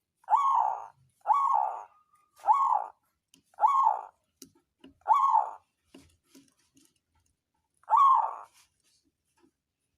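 Zebra dove (perkutut) cooing: five short coos about one a second, then a pause of about two seconds before one more coo.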